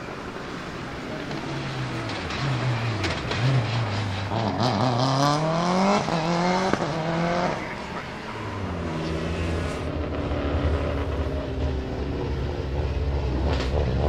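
Subaru Impreza S7 WRC rally car's turbocharged flat-four engine revving up for several seconds. Near the middle there is a sharp crack, then the revs drop. In the last few seconds the engine runs at low revs with a steady low rumble.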